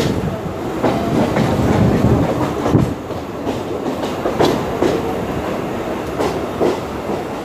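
Mumbai suburban local electric train running, heard from its open doorway: a steady rumble of wheels on rail with sharp clacks over rail joints and points. The sound gradually gets quieter as the train draws alongside a station platform.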